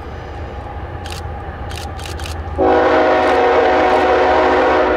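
Approaching diesel freight locomotive's air horn sounding one loud, steady blast of about two seconds that starts suddenly just past halfway and cuts off sharply, over the low rumble of the locomotive's engine.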